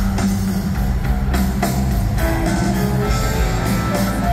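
Live rock band playing through a concert PA, heard from the audience: electric guitar over bass and a drum kit keeping a steady beat.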